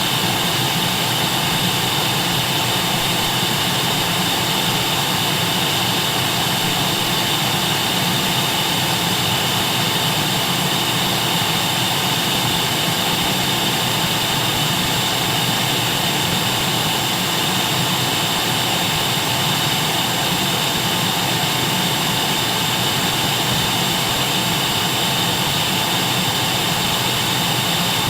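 Vacuum cleaner running steadily: a constant whooshing drone with a fixed high whine over a broad hiss, never changing.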